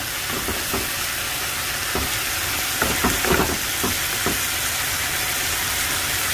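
Pork belly, bamboo shoots and onion in a sweet-soy sauce sizzling steadily in a frying pan as the sauce reduces, with a few short knocks of stirring.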